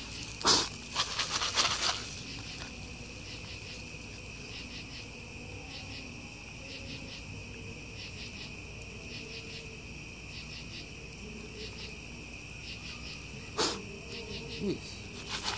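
Crickets chirping steadily in an evenly pulsing night chorus. A short burst of rattling near the start and another brief sound near the end.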